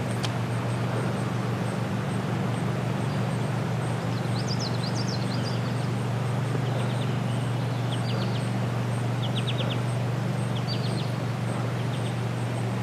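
Small birds chirping in short, quick trills over a steady low background noise, the chirps starting about four seconds in.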